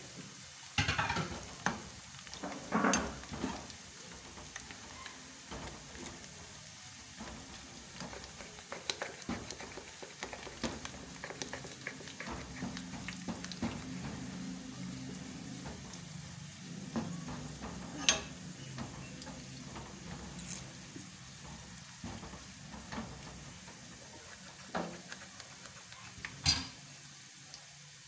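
Oil sizzling as sliced onion, whole dried red chillies, curry leaves and cumin fry for a tadka in an aluminium karahi, with a spoon stirring and scraping through it. The spoon clicks on the pan now and then, with a few sharper knocks against the metal.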